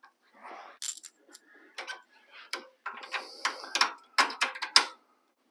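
Small steel hardware clinking and ticking by hand: washers and a nut knocking against a sway bar end-link bolt as it is fitted together. There is a string of irregular short clicks, busiest in the second half.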